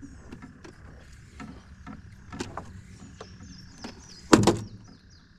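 Knocks and rustles of a limb line and its branch being handled by hand from a metal jon boat, with one much louder knock about four seconds in.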